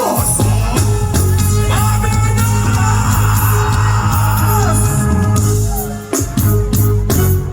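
Live reggae music played loud over a concert sound system, with a heavy, pulsing bass line and drums, and a voice singing over it.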